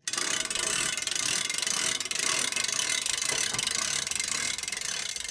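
Gear-and-ratchet mechanism sound effect: dense, rapid mechanical clicking and clattering that starts abruptly and begins to fade near the end.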